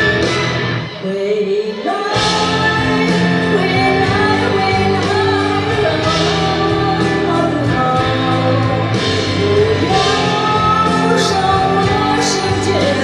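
A woman singing a slow pop song into a handheld microphone over backing music. The accompaniment thins out briefly about a second in, then comes back in full about two seconds in under the sung melody.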